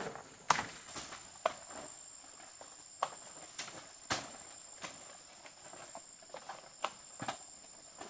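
Scattered sharp snaps and crackles of vegetation, about six in eight seconds, over a steady high-pitched insect trill.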